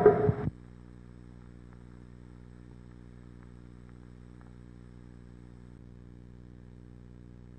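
Drum-led music cuts off abruptly about half a second in, leaving a faint, steady low hum.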